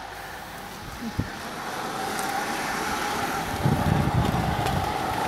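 A car going by on the road: its engine and tyre noise swells over the first few seconds and then holds steady, with a faint steady whine.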